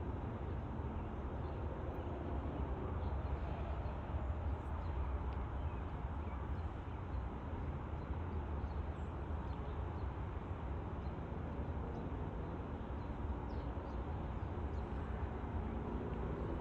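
Steady low outdoor rumble with a few faint, brief chirps from small birds.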